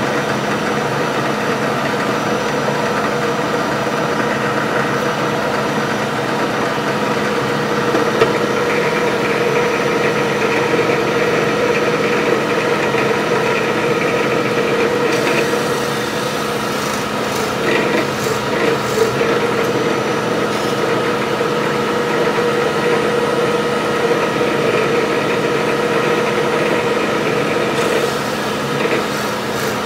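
Drill press running steadily with a plug cutter boring into a wooden board, cutting plugs for a guitar bridge-plate repair. The cutter's scraping and rasping rise and fall over the steady motor hum as each plug is cut.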